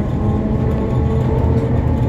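Gotha T57 tram running: a steady low rumble of wheels on the track, with the traction motors' whine rising slowly in pitch as it picks up speed.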